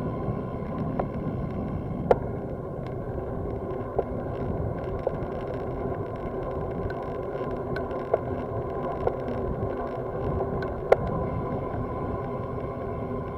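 Bicycle riding on a town street, heard from a camera mounted on the bike: a steady rumble of wind and tyres with a steady hum. Several sharp ticks are scattered through it, the loudest near the end.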